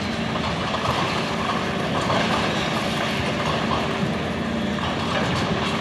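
Long-reach demolition excavator running steadily as it works at a damaged building, its engine giving a constant low hum under a dense mechanical noise.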